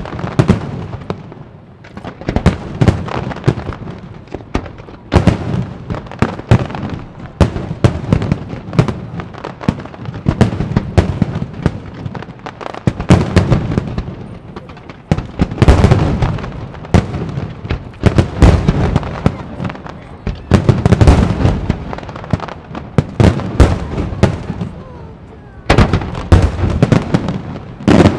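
Aerial fireworks shells bursting in dense, uneven volleys of sharp bangs and booms, each trailed by an echo.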